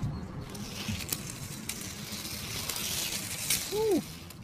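Toy engines being handled and run: a steady rustling, rattling noise with scattered light clicks, and one short rising-then-falling squeak near the end.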